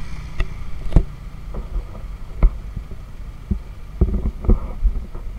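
Irregular dull thumps of a body-worn camera jostling as its wearer walks, over a low steady hum of street traffic.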